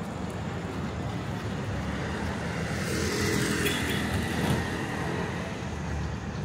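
Street traffic with a motor vehicle passing: a steady low rumble, with the vehicle's sound swelling about three seconds in and easing off about two seconds later.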